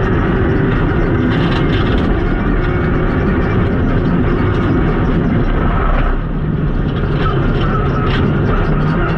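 Renault Clio Rally4's turbocharged engine running hard, heard from inside the cockpit together with road and tyre noise. The level dips briefly about six seconds in, then the engine note climbs again.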